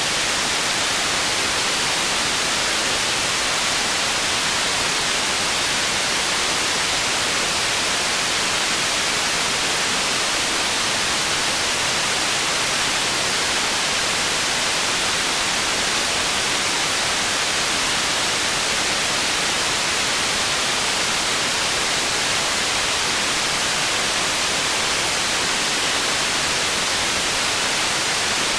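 Processed white noise made for tinnitus masking: a steady, even hiss weighted toward the treble, with little low end and no change.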